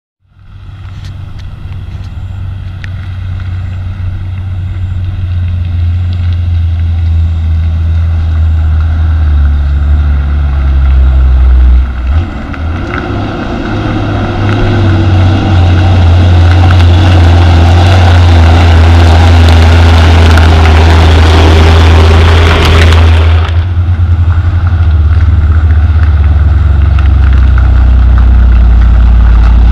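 Heavy diesel haul truck engine running with a deep, steady low hum that fades in at the start. A louder rushing noise swells over it in the middle and cuts off sharply about two-thirds of the way through.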